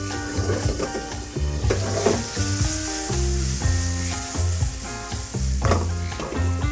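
Tomato sauce sizzling in a skillet over a high gas flame, boiling hard so its water cooks off and the sauce reduces fast. Background music with a bass line plays along.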